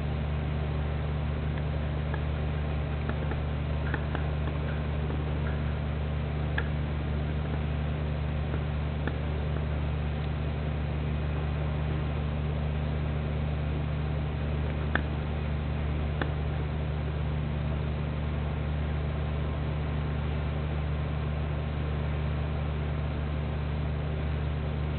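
Steady low hum with a constant hiss over it, and a few faint scattered clicks.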